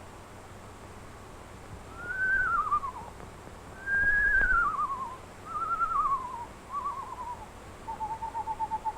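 Screech owl calling: a series of quavering, descending whinnies, followed by a long, level trill on one pitch starting near the end.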